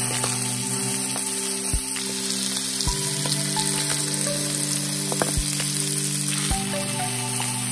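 A cutthroat trout fillet frying skin side down in butter in a cast iron skillet, a steady sizzle throughout, with background music under it.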